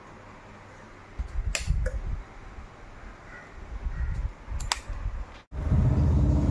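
Irregular low thumps and two sharp clicks, like a phone being handled and moved around a workbench. After an abrupt cut, a loud steady low rumble of unclear source takes over.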